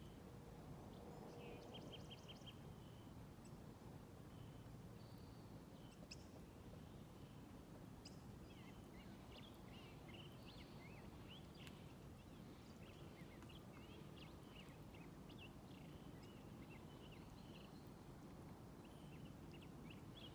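Faint pond-side birdsong: birds chirping and twittering, with a quick trill of repeated notes about two seconds in. The chirping grows busier from the middle to near the end, over a steady low background noise.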